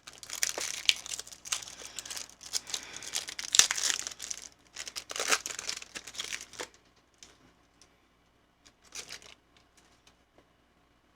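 Foil wrapper of a Pokémon booster pack crinkling and tearing open for about six or seven seconds, followed by a few faint rustles.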